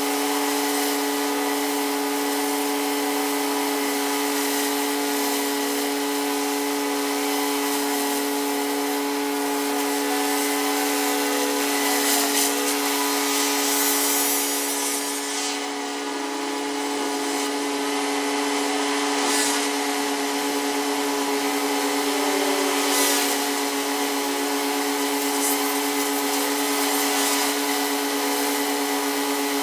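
Pressure washer running steadily at a constant pitch, with the hiss of its high-pressure spray on concrete; the hiss briefly drops about halfway through.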